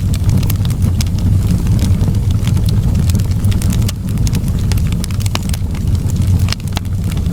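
Wood fire in a fireplace burning, with a steady low rumble of the flames and frequent sharp crackles and pops from the burning logs.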